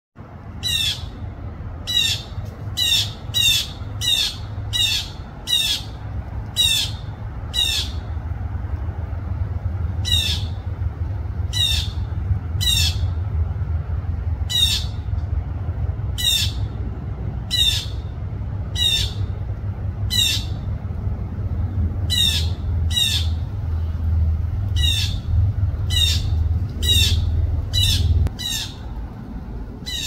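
Blue jay giving its harsh "jay" call over and over: short squawks in quick runs of about two a second, broken by short pauses, over a steady low rumble that stops near the end.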